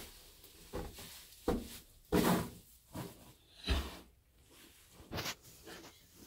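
Straw bedding rustling and crunching as a Shetland pony mare in labour goes down onto her side, with a heavier thump of her body settling into the straw about two seconds in and a few more shifting rustles after.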